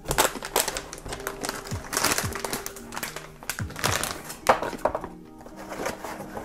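Plastic anti-static bag crinkling and rustling in short bursts as a motherboard inside it is lifted out of its cardboard box. Under it runs chillhop background music with a steady beat.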